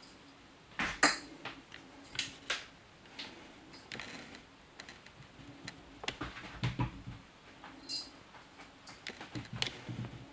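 A British Shorthair kitten playing with a ribbon wand toy and plastic toys: irregular light clicks, taps and knocks, the sharpest about a second in, with a few soft thumps later.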